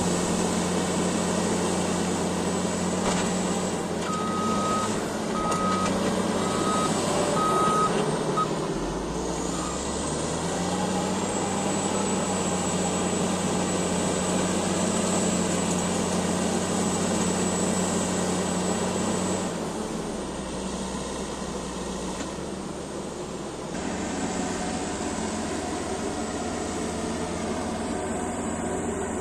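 Caterpillar D8T bulldozer's diesel engine running, its reverse alarm beeping five times about once a second in the first third. The engine note changes about a third of the way in and again near the end.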